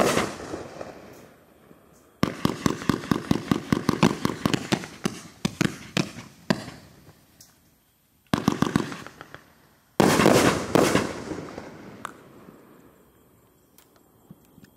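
A 500-gram consumer fireworks cake, the 40-shot Cluster Bomb, firing its shots. One sharp report at the start, then a rapid string of sharp pops for about four seconds, another burst about eight seconds in, and a heavy burst about ten seconds in that dies away slowly.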